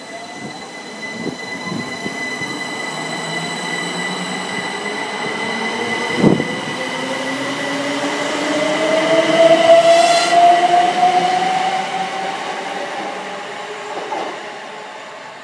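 A c2c Class 357 Electrostar electric multiple unit pulling away from the platform, its traction whine climbing slowly and steadily in pitch as it gathers speed. There is a sharp clunk about six seconds in and a short crackle near ten seconds, when it is loudest, then the sound fades as the train draws away.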